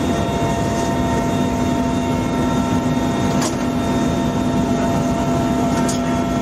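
Helicopter in flight heard from inside its cabin: a loud, steady drone of engine and rotor with a constant low hum and several fixed tones above it. Two faint clicks come about three and a half and six seconds in.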